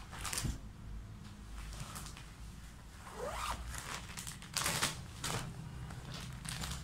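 Plastic packaging and the fabric of a prayer mat rustling as the mat is handled and pulled out of its bag, in several short rustles, the loudest about two-thirds of the way through.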